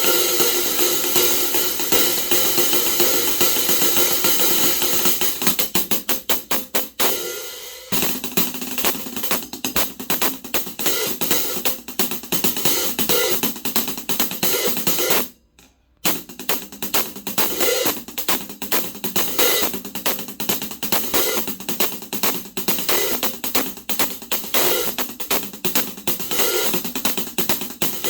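Zildjian K Sweet 14-inch hi-hat cymbals played in a fast, steady stream of strokes along with drums, stopping briefly about halfway through before the groove starts again.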